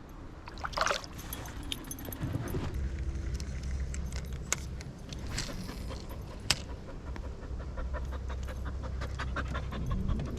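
A dog panting, with a short high sound about a second in.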